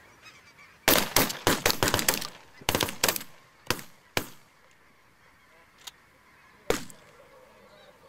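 A rapid volley of shotgun shots from several hunters: about a dozen blasts in quick succession starting about a second in, a couple more spaced out to about four seconds, then a faint distant shot and a last loud one near seven seconds. Under the shots, a flock of snow geese keeps up a steady honking.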